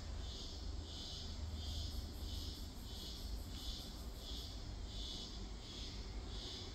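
A faint high-pitched chirp repeating evenly, a little under twice a second, over a low steady rumble.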